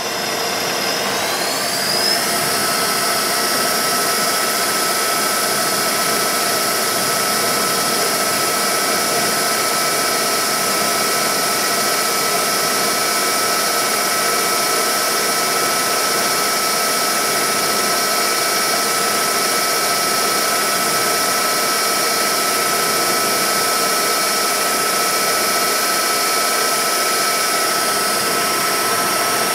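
A milling machine spindle spins up with a rising whine over the first two seconds, then runs at a steady high whine. It is driving a small drill bit into the hub of a brass spur gear to drill a set-screw hole.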